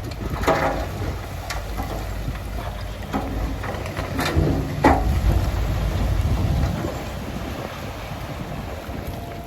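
Heavy diesel earthmoving machinery running with a deep, steady rumble, broken by several sharp metallic clanks and squeals. The rumble eases about seven seconds in.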